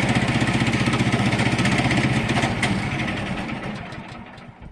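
The engine of a small portable band sawmill running steadily, then shut off and winding down to a stop over the last couple of seconds.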